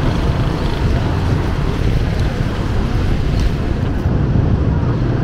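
Wind buffeting the microphone: a steady low rumble over street noise.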